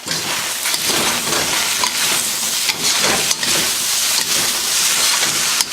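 Stir-fry sizzling loudly in a wok over high heat, the sizzle jumping up at the start as sliced peppers go into the hot oil, with a few brief scrapes of the ladle as the food is tossed.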